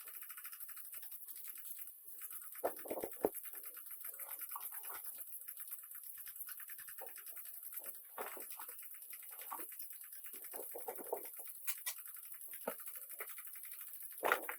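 Rapid scratchy rubbing on a hard surface, with a couple of sharp knocks about three seconds in.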